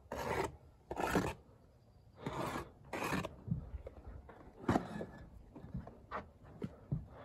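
Steel brick trowel scraping through mortar on a mortar board, four scrapes in the first few seconds, followed by several short, light taps and knocks.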